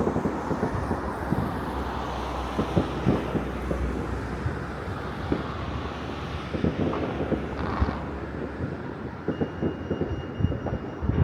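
Distant fireworks across a city, going off in irregular bangs and pops over a steady rush of wind on the microphone.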